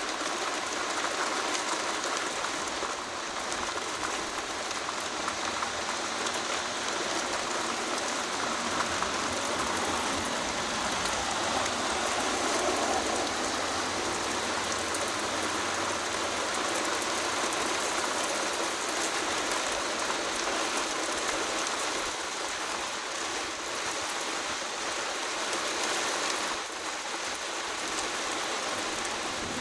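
Rain shower falling steadily: an even hiss of raindrops hitting surfaces.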